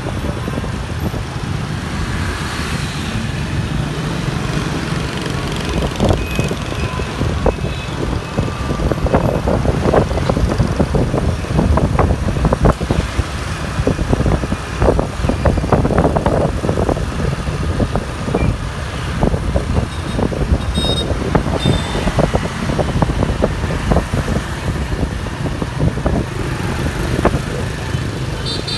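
Motorbike and scooter traffic heard from a moving motorbike: engines and road noise, with an uneven rumble of wind on the microphone.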